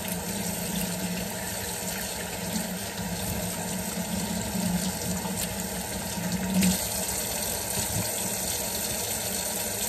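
Kitchen faucet running steadily into a sink, the water splashing over raw chicken as it is rinsed by hand.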